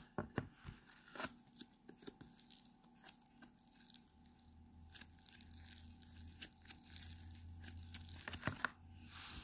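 Pink snow fizz slime squeezed and folded by hand, giving a run of small, irregular crackles and pops.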